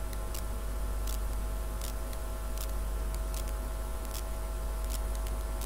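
Steady low hum of room tone, with faint, scattered light ticks.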